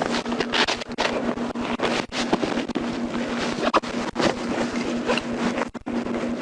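Rustling, rubbing and irregular knocks on a body-worn camera's microphone as it is jostled during chest compressions, with wind noise and a steady low hum underneath.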